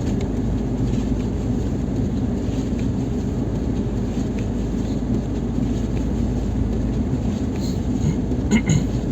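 Lada Niva Travel's four-cylinder petrol engine running steadily under load, a low drone with road and tyre noise, as the SUV drives through snow. A few light clicks near the end.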